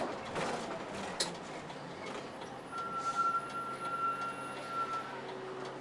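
Running noise of a route bus heard from inside the cabin as it drives: steady engine and road noise. There is a sharp click about a second in and a thin steady tone lasting about two seconds in the middle.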